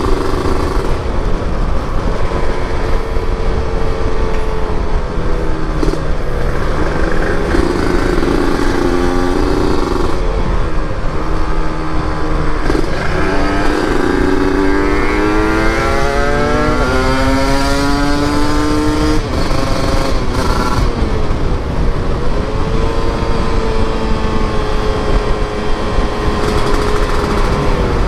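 Motorcycle engine running under way, with wind rushing over the microphone. Most of the time it holds a steady pitch; around the middle it revs up, the pitch climbing for several seconds before it drops back to a steady cruise.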